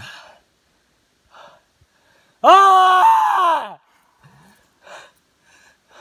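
A man's short gasping breaths, then one loud, high pained wail lasting over a second that drops in pitch at the end, followed by more short breaths.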